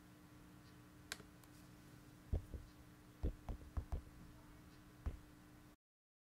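A few soft clicks and knocks over a faint, steady hum of room tone, several bunched together in the middle. The sound then cuts out to dead silence near the end.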